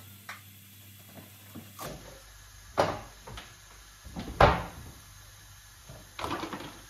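Kitchen handling sounds: a fridge door being shut and things being knocked and set down on the worktop, a few separate knocks and clatters with the loudest about four and a half seconds in.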